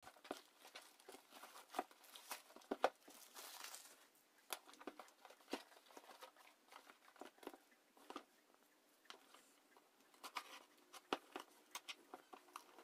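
Quiet rustling and crinkling of a plastic courier mailer bag being torn open and pulled off a cardboard box, with scattered light clicks and taps of the box being handled.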